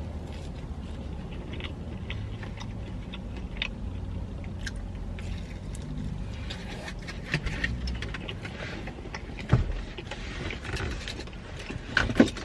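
Pepperoni pizza being chewed close to the microphone, with small wet mouth clicks and crackles over a steady low rumble, and two louder sharp knocks, one about two thirds of the way in and one near the end.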